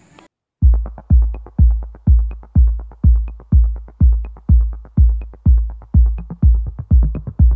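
Background electronic dance music: a heavy kick drum beating steadily about twice a second, starting after a brief gap under a second in.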